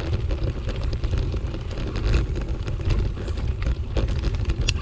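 Bicycle riding over a dirt forest path: a steady low rumble of wind on the microphone and tyres on the ground, with scattered small clicks and rattles, and one sharp click near the end.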